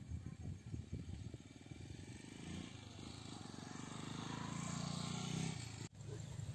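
A small motorcycle engine running as it passes close by, getting steadily louder over a few seconds, then cutting off suddenly near the end.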